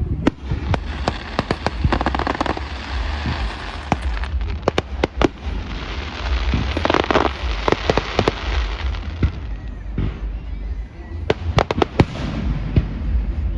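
Fireworks display: a rapid, irregular series of sharp bangs and pops, with dense bursts of crackling about two and seven seconds in.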